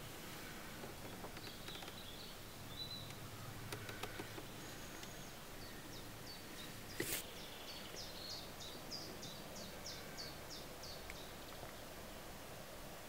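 Faint woodland ambience with a small songbird singing. Its song is a run of short, high, falling notes, about four a second, that lasts three seconds or so past the middle. A single sharp click comes just before it.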